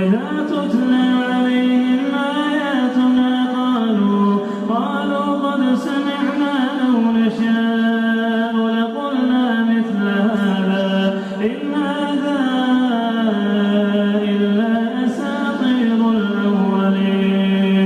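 A solo male voice chanting the Quran in a melodic recitation style, with long held notes and gliding ornaments, unaccompanied. Brief breaths break the line now and then.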